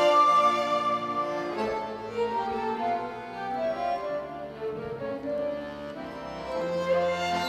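Live Moldovan folk music played by flute, two violins and accordion. The tune softens in the middle and swells again near the end.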